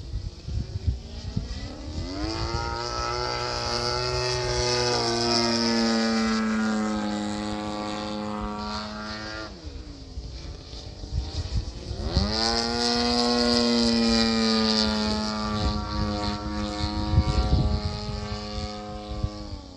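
Radio-controlled aerobatic plane's motor and propeller whine in flight. Power comes up about two seconds in with a rising pitch, then the pitch drifts slowly lower. It is cut sharply near ten seconds, comes back with a quick rise about two seconds later, and fades a few seconds before the end. Wind buffets the microphone throughout.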